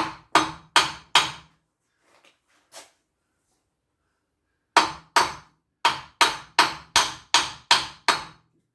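A hammer striking a front suspension part of a Ford Mondeo to drive it into place. There are about four quick blows, a pause of about three seconds, then a run of about nine more at two to three a second, without the part going home.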